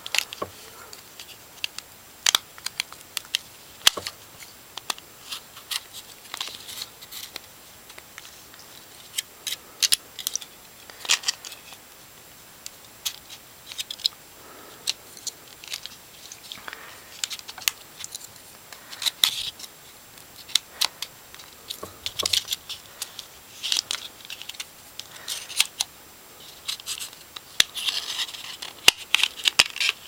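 Sharp plastic clicks and snaps with short bouts of scraping as the plastic housing of an HTC Hermes (AT&T 8525) phone is pried and worked apart by hand and with a plastic pry tool. The clicks come irregularly, every second or so.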